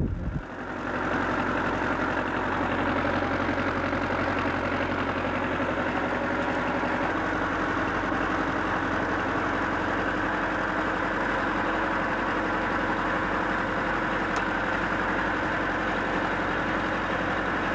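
Fishing boat's engine running steadily: an even, unchanging hum that starts abruptly about half a second in.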